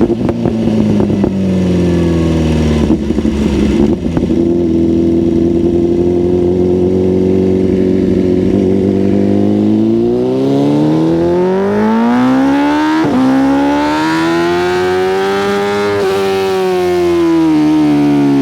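2024 BMW S1000RR inline-four running through a full titanium Spark Grid-O exhaust system. It holds steady revs for several seconds, then slowly rises in revs and falls back toward the end.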